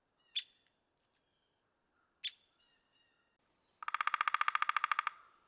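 Downy woodpecker: two short, sharp pik calls about two seconds apart, then a rapid even drumroll lasting just over a second near the end.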